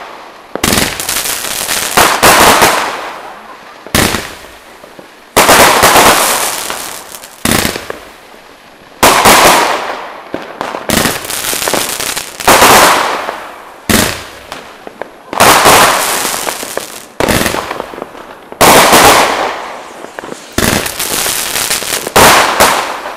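New Year's Eve fireworks going off: a string of loud bangs about every one and a half to two seconds, each trailing off in a fading hiss over a second or so.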